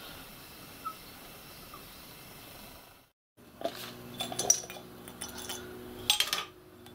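Faint steady room hum. After a short break, a metal tool clinks and taps against a glass jar as a steam injector is fished out of its de-scaling vinegar: a run of light glassy clinks, the loudest about a second and a half after the clinking starts and again near the end.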